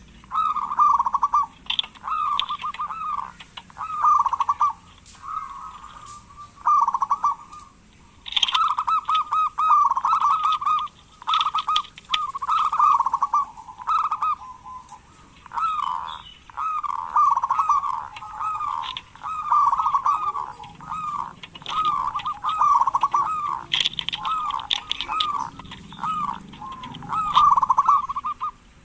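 Zebra dove (perkutut) calling: rapid rolling coo phrases, one after another with only short breaks.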